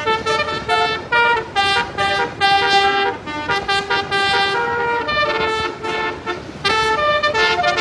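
Basuri multi-tone 'telolet' air horn playing a quick tune, short notes jumping between pitches several times a second, with a few brief pauses.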